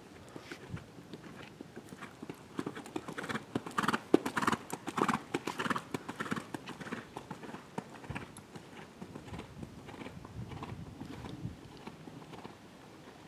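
Hoofbeats of a four-year-old Holsteiner gelding cantering on sand arena footing, a run of soft thuds that grows loudest around the middle.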